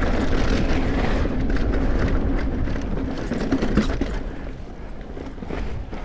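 Riding a mountain bike down a dirt trail: wind rushing over the microphone and the tyres rolling on dirt, with frequent clicks and knocks from the bike over bumps. It eases off a little after about four seconds.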